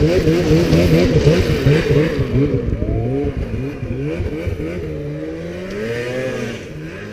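Snowmobile engine revving hard while climbing a steep snow hill, its pitch jumping up and down quickly as the throttle and load change. It grows quieter and the pitch swings become slower and wider toward the end.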